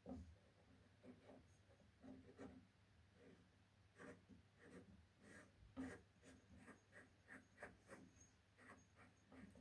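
Faint, irregular small clicks and rubbing, as of small parts being handled, coming more often and a little louder from about four seconds in.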